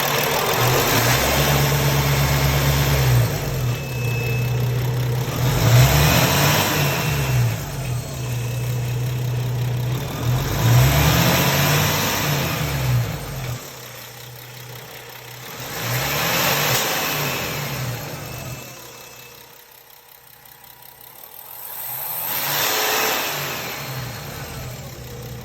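Paccar diesel truck engine revved up and let back down about five times, each rev bringing a loud hissing rush, the sign of an exhaust leak, with quieter idling between revs.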